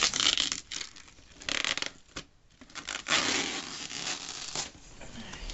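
Packaging being opened by hand: bursts of rubbing, scraping and tearing of cardboard and plastic, the longest about three seconds in.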